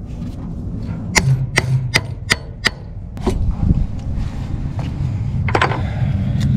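Wrench working the fuel-line fitting on a carburetor: five sharp clicks about a third of a second apart starting about a second in, then two more single clicks, over a low steady rumble.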